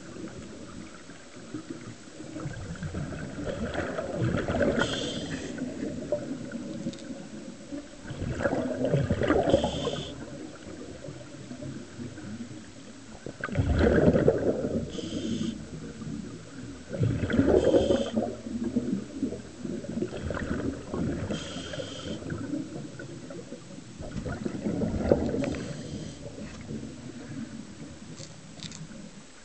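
Scuba diver breathing through a regulator underwater, heard from the camera. Exhaled bubbles rush and gurgle in six bursts about four seconds apart, each with a short hiss from the regulator.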